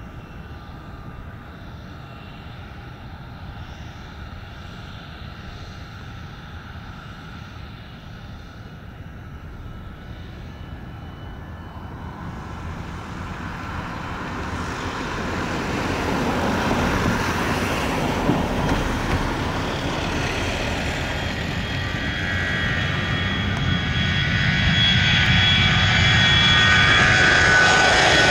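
Airbus A319's CFM56 turbofan engines at takeoff power: a distant, steady jet rumble that swells from about twelve seconds in as the airliner accelerates down the runway, then grows louder again toward the end as it lifts off and climbs close by, with a high engine whine joining the rumble.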